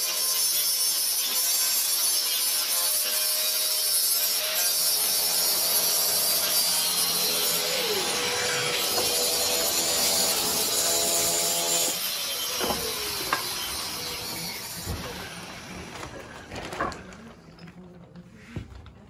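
Handheld angle grinder grinding rust off a metal bus tailgate: a loud, steady grinding whine whose pitch dips now and then as it bites. After about twelve seconds it grows quieter, giving way to a few scattered knocks and clicks.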